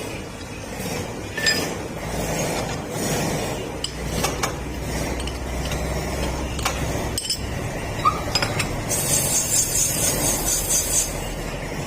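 Workshop machinery running steadily with scattered metal clinks and taps. About nine seconds in, a high, fast rattling hiss lasts a couple of seconds.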